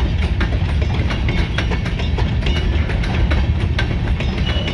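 Escanaba & Lake Superior freight train cars rolling past: a steady low rumble of wheels on rail with frequent irregular clicks and clanks.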